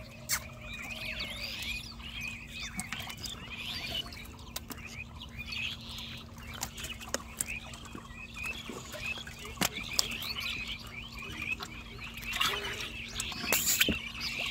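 Catfish thrashing in muddy water as they are grabbed by hand: wet splashes and sharp slaps, the loudest splashing near the end. Busy high chirping and squeaking continues throughout.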